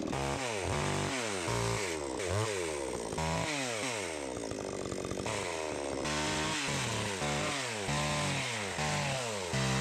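Chainsaw cutting through old, dry logs, its engine pitch dropping and rising again over and over, about once a second.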